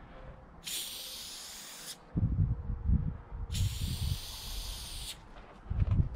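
Aerosol spray paint can hissing in two bursts of about a second and a half each, laying down black lines. Loud low rumbling bursts come between the sprays and again near the end.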